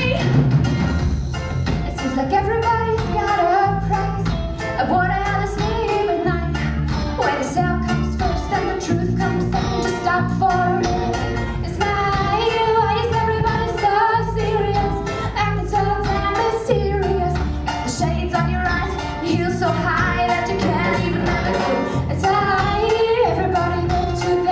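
A live reggae band playing: a woman sings lead over drums and bass guitar with a steady beat.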